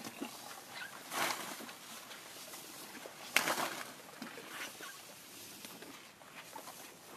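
Asian elephant moving through tall grass, the vegetation rustling and swishing against it. There are two louder bursts of noise, about a second in and about three and a half seconds in; the second is sharp and the loudest.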